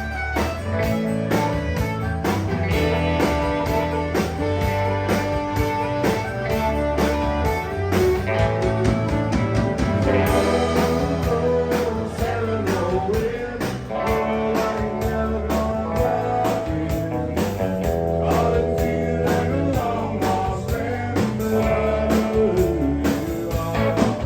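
Country band playing: electric guitar over bass and a steady drum beat, with a singer's voice.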